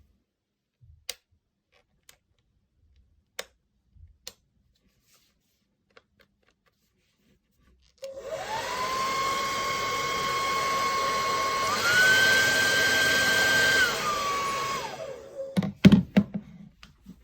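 A few light clicks, then a Revlon RVDR5823 2000 W hair dryer is switched on about halfway through: its motor whine rises as it spins up and settles into a steady rush of air. Around two-thirds of the way in the whine steps up to a higher pitch, as on a higher speed setting, then drops back before the dryer is switched off and winds down, followed by a few handling knocks.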